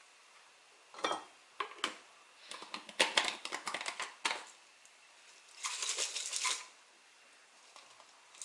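A plastic screw-top lid goes onto a clear plastic jar and is twisted shut, with a few sharp clicks and then a quick run of clicking, scraping thread noise. About a second later, crispy fried shallots rustle briefly inside the closed jar as it is tipped.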